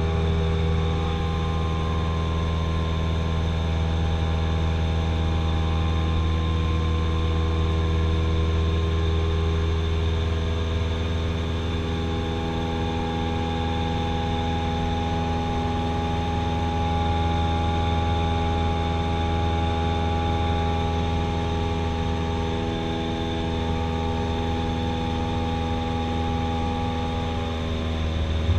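Cessna 172SP Skyhawk's four-cylinder Lycoming engine and propeller running steadily in flight, heard from inside the cabin as a low hum with a stack of tones over a noise of rushing air. The pitch shifts slightly about twelve seconds in and again near the end as power is changed.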